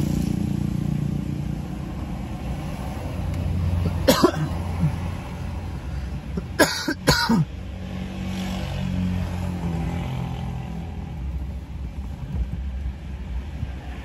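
Steady low hum inside a stationary car's cabin, broken by three short coughs: one about four seconds in and two in quick succession around seven seconds.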